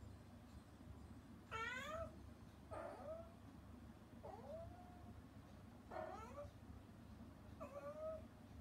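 Mother cat meowing five times, short calls that rise and then fall in pitch, spaced about a second and a half apart. She is calling to her kittens.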